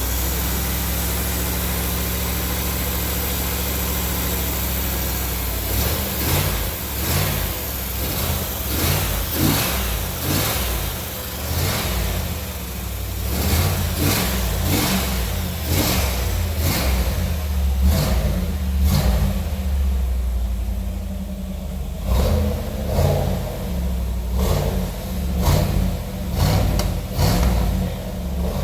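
Z28 Camaro's LT1 350 V8 idling steadily, then from about six seconds in the throttle is blipped over and over in quick short revs, with a brief lull about two-thirds through before more blips. The engine, just brought back to life, is running pretty good.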